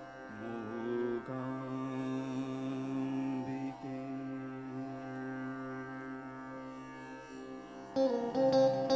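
Live band playing an instrumental opening in Indian classical style: held keyboard chords with a slow melody over them. About eight seconds in, a louder melody and percussion strikes come in.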